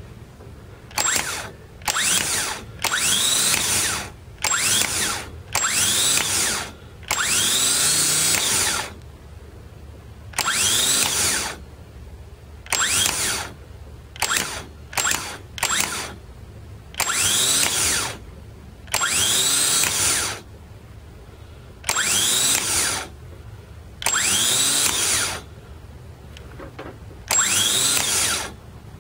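Rebuilt Mitsubishi gear-reduction starter motor bench-tested on jumper wires, spinning up in over a dozen short bursts, each a rising whine that stops when the jump is released. The starter runs freely, a sign that the rebuild with new brushes works.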